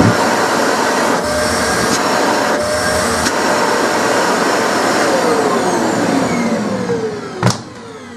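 Samsung SC4520 vacuum cleaner running at full suction on a test run with freshly washed foam filters, then switched off about five seconds in, its motor whine falling as it spins down. A sharp click near the end.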